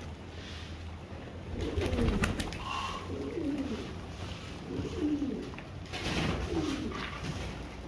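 A flock of Siraj pigeons cooing over and over in low, rolling calls, with a few flurries of wing flapping.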